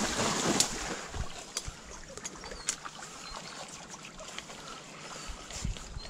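Water splashing and sloshing at a reedy pond bank, with scattered sharp snaps of twigs and brush. It is loudest in the first second or two, then settles to a lower, steady wash.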